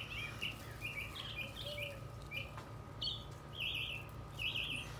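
Small birds chirping: short, quick chirps come in little clusters, one or two clusters a second, over a low steady hum.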